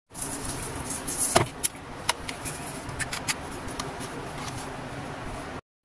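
Sharp plastic clicks and taps from hands handling a small mini portable cooler, over a steady hum and hiss. The loudest click comes about a second in, and a few more follow over the next two seconds.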